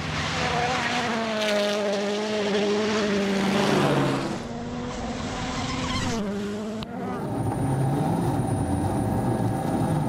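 Rally car's turbocharged four-cylinder engine at high revs, its note sagging slightly over the first four seconds, then rising briefly again around six seconds. After a sudden cut about seven seconds in, the engine is heard from on board, running hard with a thin high whine over it.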